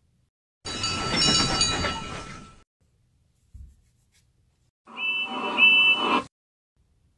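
Toby the tram engine's bell from Thomas & Friends ringing and dying away. After a short thump, a train whistle gives two short toots over a hiss, the whistle of the next engine, Theo.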